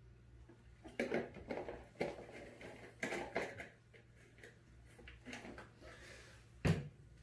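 Scattered clicks, knocks and rustles of a person handling a drinks bottle and moving about in a small room, then one sharp thud near the end.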